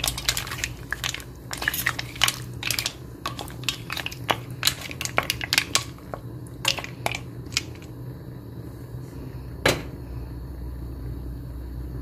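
Wooden spoon stirring mussels and clams in a stainless steel pan: shells clack against each other and the pan in quick, irregular clicks. The clicks thin out after about seven seconds, with one last sharp click near the end, over a low steady hum.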